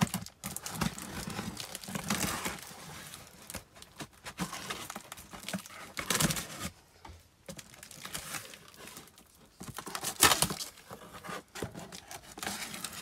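Packing tape on a cardboard box being slit with a knife and ripped away, with crackling tape and scraping, rustling cardboard in irregular bursts. There are sharper rips about six and ten seconds in.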